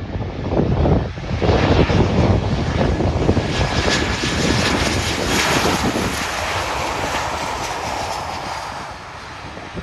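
Jet airliner passing close, its engines swelling to a loud rushing roar, then fading away as it goes by.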